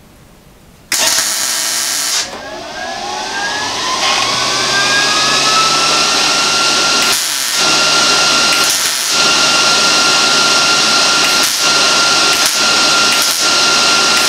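An electric motor starting with a loud burst about a second in, then spinning up over a few seconds to a loud, steady whine that cuts out briefly several times.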